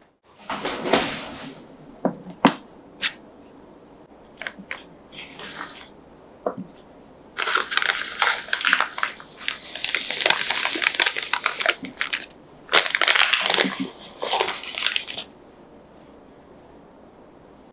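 Baking paper crinkling and rustling as it is peeled off the sides of a chilled soufflé cake, in two long stretches about halfway through. Before it come a few light taps and knocks.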